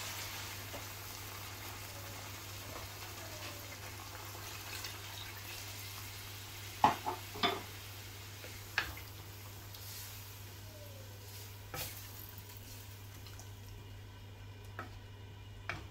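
Fish curry simmering in an aluminium pot on a gas stove with a faint, steady hiss. About seven seconds in, a wooden spatula stirring it knocks against the pot three times in quick succession, then a few more single knocks follow.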